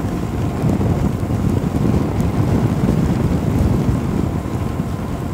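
Wind buffeting the microphone of a motorcyclist riding at speed: a steady, low, fluttering rush.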